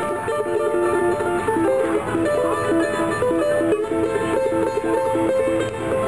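A charango, a small ten-string instrument, plucked in a quick melody of single notes.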